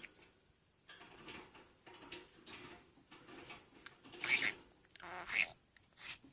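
Budgerigar mimicking a sneeze: a run of short, scratchy, hissing bursts, the two loudest about four and five seconds in.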